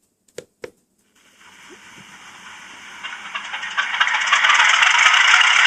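Sound decoder of a Hornby Class 50 model diesel locomotive playing its engine start-up: two short clicks, then from about a second in the diesel engine sound winds up, growing louder over a few seconds and settling into a steady run.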